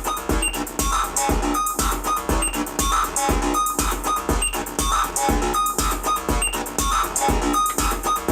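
Electronic music: a Korg Volca Keys analog synthesizer plays a short, repeating preset pattern over a drum machine's steady kick beat, about two beats a second.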